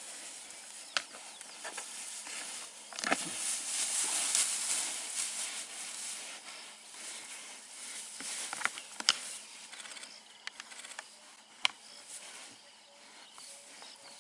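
Two bushbuck rams fighting with locked horns in long grass: a rustling hiss of grass being trampled and pushed through, with a handful of sharp clicks as horns knock together.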